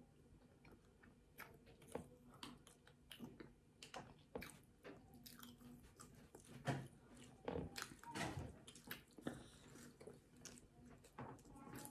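Faint mouth sounds of a person chewing soft banana cake: irregular wet smacks and clicks of chewing, a little busier after about six seconds.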